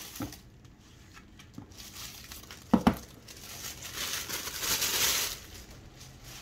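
Tissue paper crinkling as a bayonet is unwrapped, with one sharp knock a little before the middle and a louder rustle of the paper about four seconds in.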